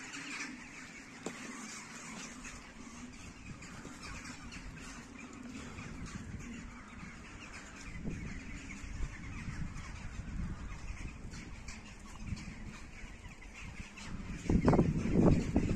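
Birds calling in park trees, with a louder burst of noise near the end.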